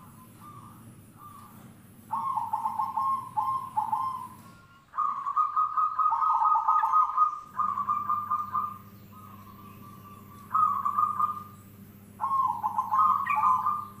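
Zebra dove (perkutut) cooing: four phrases of quick, rolling coo notes with short pauses between them, the first about two seconds in.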